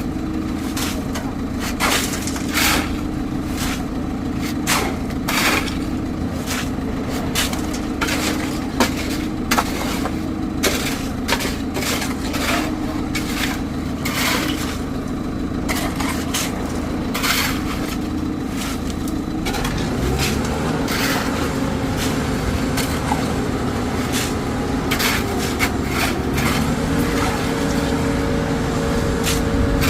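Engine of site machinery running steadily, with frequent sharp knocks and scrapes of concreting work over it. The engine speeds up about two-thirds of the way through and holds the higher pitch.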